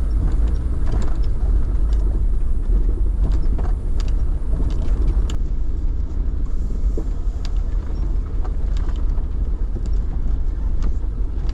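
Car driving slowly: a steady low engine and road rumble with scattered light knocks and rattles.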